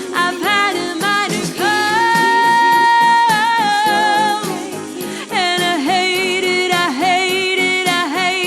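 Pop-ballad song: a solo voice sings long held notes and sliding vocal runs over backing music.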